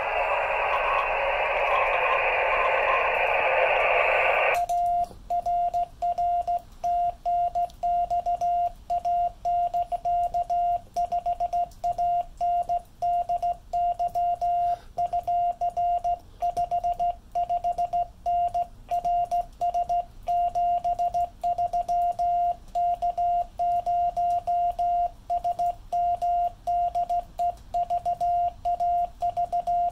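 10 GHz amateur radio rig: receiver hiss that cuts off about four and a half seconds in, then a single steady tone keyed on and off in Morse code rhythm. This is the CW sidetone as the operator sends on a hand key.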